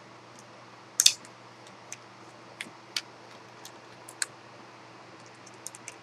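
Small Phillips screwdriver taking the mounting screws out of a 2.5-inch laptop hard drive: scattered light metal clicks and ticks, the loudest a quick cluster about a second in.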